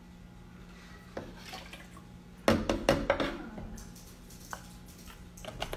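A soft pour of milk, then a green plastic measuring cup clattering and knocking against a blender jar and the countertop: a quick burst of knocks about two and a half seconds in, then a few lighter taps near the end.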